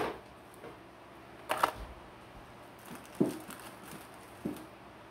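Three short, separate knocks and clicks, roughly a second and a half apart, over quiet room tone.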